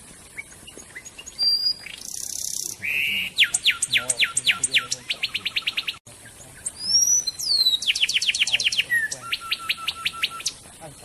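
A songbird singing two phrases. Each opens with a few high calls, then runs a string of sharply falling whistled notes that speed up into a fast, even trill. A short harsh rasp comes just before the first string.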